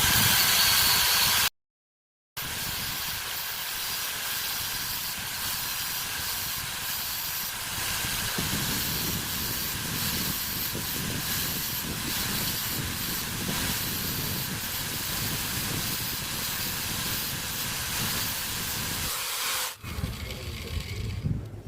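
Steady hiss with no clear rhythm or tone, broken by a brief dead silence about two seconds in and fading near the end.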